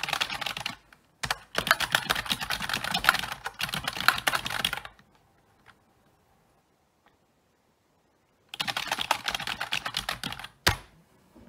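Fast typing on a plastic computer keyboard, a dense run of key clicks lasting about five seconds with a short break. After a pause of about three seconds the typing resumes and ends on one hard, loud keystroke.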